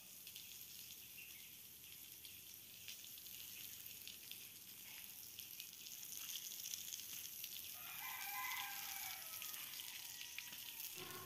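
Faint steady hiss of a garden hose spraying water onto stone paving. About eight seconds in, a rooster crows once, faintly.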